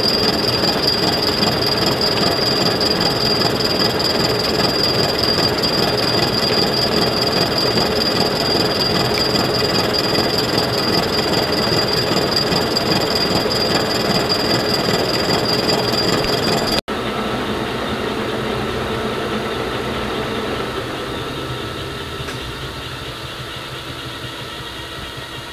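Defiance horizontal boring mill taking a face-milling pass with a 5-inch carbide-insert face mill: steady machining noise with a high-pitched ringing tone over it. About 17 seconds in the sound breaks off abruptly, and a quieter steady machine sound follows, slowly fading.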